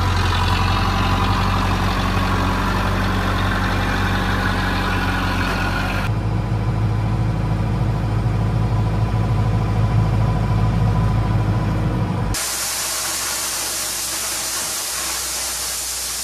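LS Plus 80 tractor's engine running as its front loader works, then the same engine heard as a lower rumble from inside the cab after about six seconds. About twelve seconds in, the sound switches to a loud, steady hiss of crushed stone pouring out of a tipping dump truck bed.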